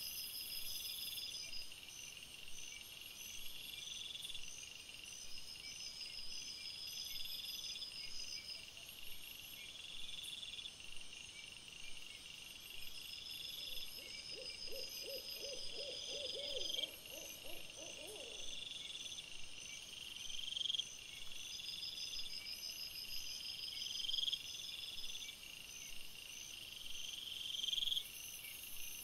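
Night insects chirping in a high, evenly repeating rhythm. About halfway through, an animal gives a low, rapidly pulsing call for a few seconds.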